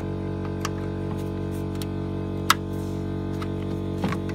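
A steady hum with many overtones, and over it a few sharp clicks of a flat screwdriver prying and releasing plastic diesel-hose clips. The loudest click comes about two and a half seconds in.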